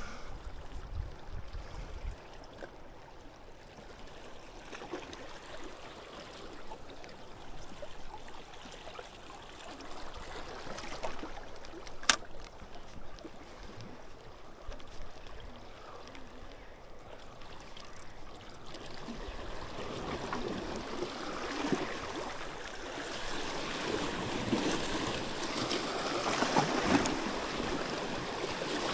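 Seawater lapping and washing, with wind. The wash grows louder over the last third, and there is one sharp click about twelve seconds in.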